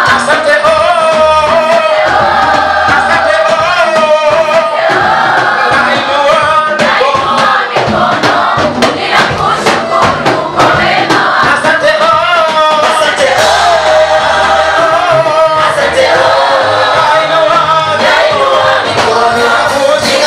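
A praise team singing a worship song with band accompaniment: voices in unison or harmony over bass and drums, with a regular beat throughout.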